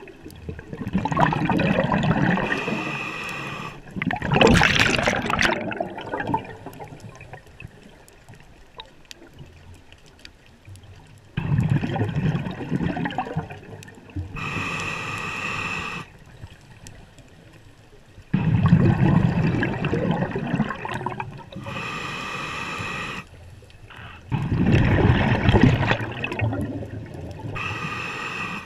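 Scuba diver breathing through a regulator underwater, several breaths in a row. Each breath is a short hissing inhale through the regulator and a longer gurgling rush of exhaled bubbles.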